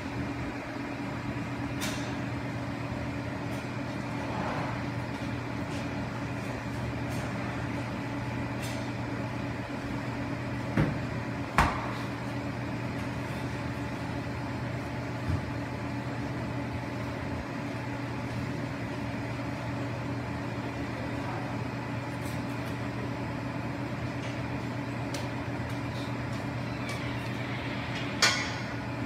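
Crêpe-shop kitchen ambience: a steady low machine hum over a constant background hiss, broken by a few sharp clacks, two close together about eleven seconds in and one near the end.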